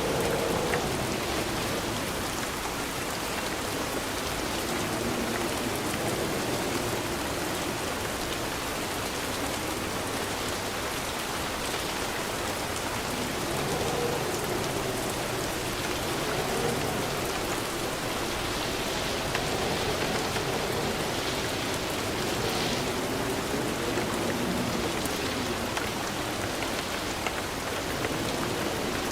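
Steady rain falling and pattering on surfaces. Underneath it a faint low wavering tone rises and falls now and then.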